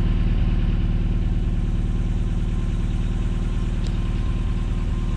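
An engine idling steadily, a low, even throb with no change in speed.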